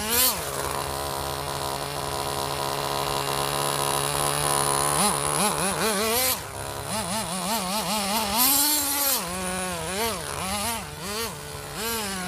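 Nitro RC car's small two-stroke glow-fuel engine running at a steady high idle for about five seconds, then revved up and down in quick blips, about one or two a second. A short burst of hiss comes about eight seconds in.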